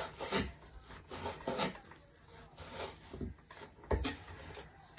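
Kitchen knife cutting raw bacon on a cutting board: a string of short scrapes and knocks, the sharpest about four seconds in.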